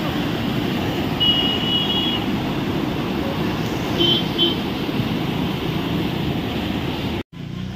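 Steady rushing roar of a swollen, muddy river in flood. Two short, high vehicle-horn toots from road traffic come about a second in and about four seconds in. The sound cuts off abruptly near the end.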